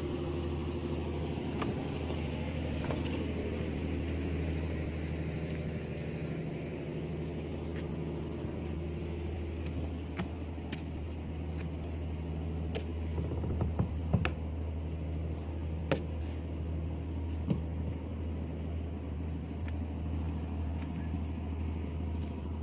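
Steady low drone of an idling engine, with a few sharp clicks and knocks in the second half.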